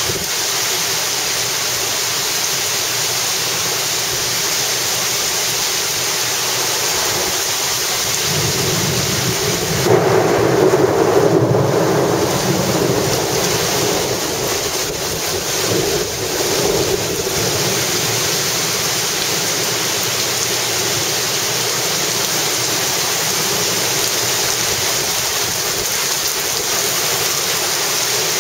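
Heavy wind-driven rain pouring steadily, with a low rumble of thunder swelling about ten seconds in and fading away over several seconds.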